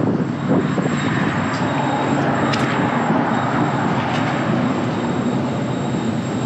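Strong wind gusting and rumbling across the microphone in a steady roar of noise.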